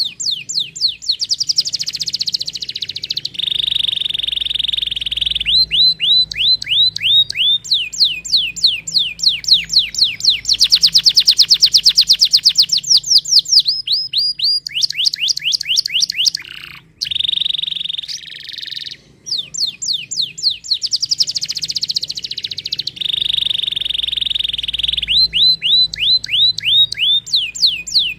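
Domestic canary singing. It alternates fast runs of repeated, falling whistled notes with steady, rapid rolling trills. It pauses briefly twice about two-thirds of the way through.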